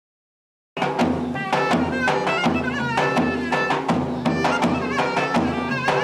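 Davul bass drum and clarinet playing a lively Turkish folk wedding tune, steady drum strokes under a winding clarinet melody. The music cuts in suddenly just under a second in.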